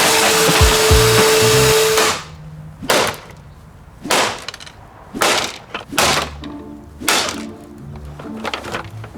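Hoover Rewind Plus upright vacuum cleaner running with a steady whine, cutting off suddenly about two seconds in. It is followed by a series of hard smashing blows on the vacuum's plastic body, about one a second.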